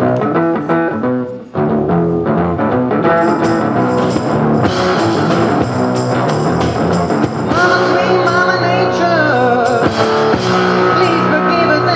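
Live rock music: a guitar and drums playing, with a man singing over them from about halfway through.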